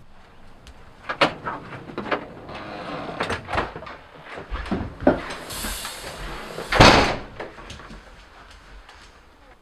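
A door being handled: a run of clicks and knocks as it is opened and moved, ending in a loud bang of it shutting about seven seconds in.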